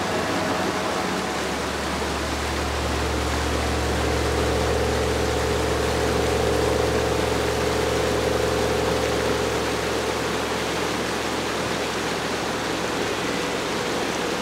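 Stream swollen after heavy rain, rushing and churning over a ford, a steady hiss of water. A low synthesizer drone from the background music swells in about a second in and fades out around ten seconds.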